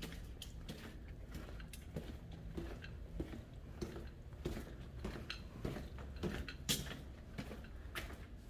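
A steady low hum, with scattered light knocks and clicks throughout.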